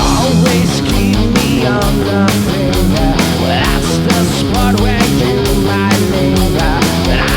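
Hard rock band playing live: distorted electric guitars, bass and drums driving a steady beat.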